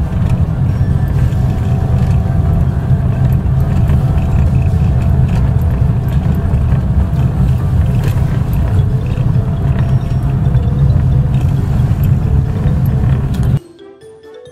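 Inside a 4x4 driving on a dirt road: a steady, loud low rumble of engine and tyres, with scattered light rattles. It drops away suddenly near the end.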